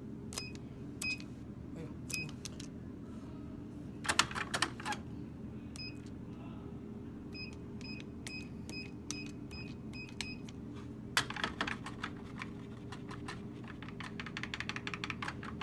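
Vending machine keypad beeping as its buttons are pressed to enter a number code, one short high beep per press, about a dozen in all, with a quick run of them between about seven and ten seconds in. Two bursts of rattling clatter come at about four seconds and again at about eleven seconds.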